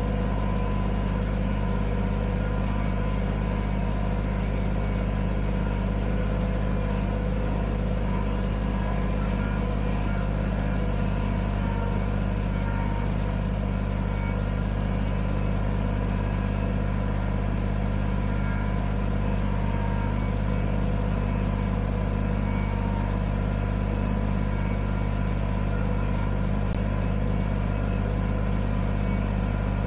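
Kubota BX25D sub-compact tractor's three-cylinder diesel engine running steadily, heard from the operator's seat, as it pushes snow with a loader-mounted plow.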